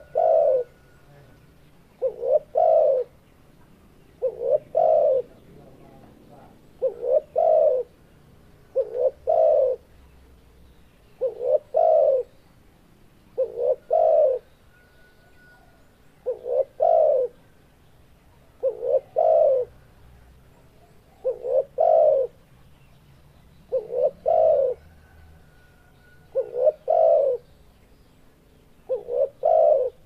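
Male spotted dove (tekukur) in breeding condition cooing: a short phrase of a few quick notes ending in a fuller coo. The phrase repeats steadily, about every two and a half seconds.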